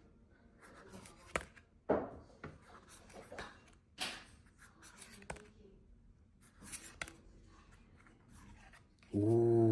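A foil booster pack and its trading cards being handled: irregular crinkles, rustles and sharp flicks as the cards are slid and flipped through by hand.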